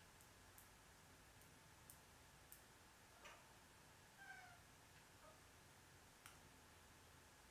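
A Siamese cat giving a few short, faint calls around the middle, among scattered faint clicks.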